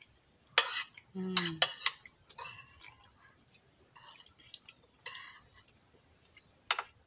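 Spoons clinking and scraping against a shared dinner plate as a meal is eaten, in a series of sharp, irregular clicks, the loudest in the first two seconds and one more near the end.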